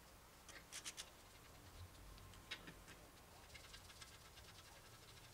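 Very faint, scattered clicks and scratches of lug nuts being spun off the wheel studs by a gloved hand, with a small cluster of clicks about a second in.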